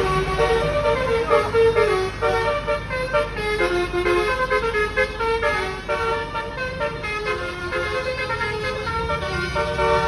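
Indonesian 'telolet' multi-tone bus horn playing a melody of quick stepped notes, over the low rumble of an idling bus engine.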